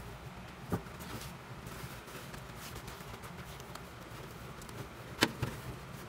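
Produce being moved around in a refrigerator crisper drawer's plastic basket: a few short knocks, one about a second in and two close together near the end, over a steady low hum.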